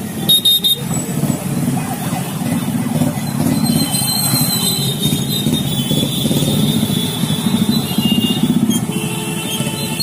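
Many motorcycle and scooter engines running together as a procession of bikes rides past, a steady dense drone. A few brief knocks come about half a second in, and thin high tones sound over the engines in the middle.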